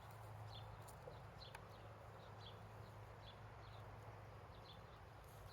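Near silence: a small bird chirping faintly over and over, about twice a second, over a low steady hum.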